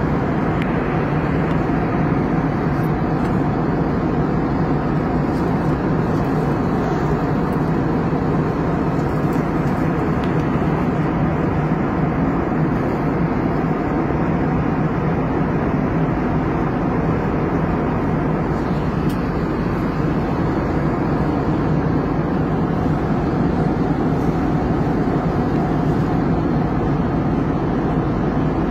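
Steady drone of a moving vehicle heard from inside its cabin, an even rumble and rush with no change in level.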